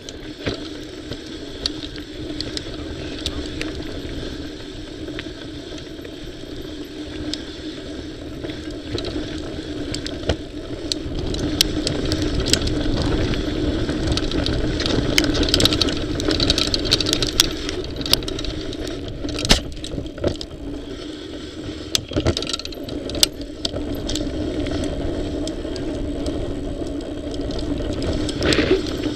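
Mountain bike rolling down a dirt singletrack, heard from a camera mounted on the bike: steady tyre and wind rumble with many sharp rattles and clicks as the bike goes over bumps. It grows louder from about eleven seconds in.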